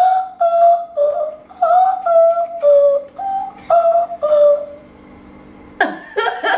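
A woman singing a short, wordless sing-song tune of about ten brief held notes in a high voice. After a short pause she bursts into a laugh near the end.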